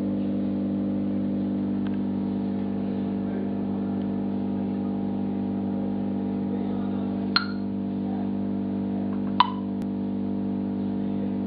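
Steady electrical hum made of evenly spaced tones, with two short sharp clicks, each with a brief ringing tone, about two seconds apart in the second half.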